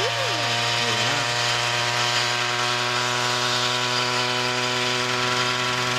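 A homemade coaxial radio-controlled helicopter's 100cc engine running at a steady pitch with its two rotors spinning, as the helicopter lifts into a low hover.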